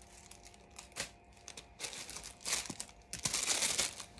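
Packaging rustling and crinkling as small parcel items are handled, with a light click about a second in and louder crinkling bursts about two and a half and three and a half seconds in.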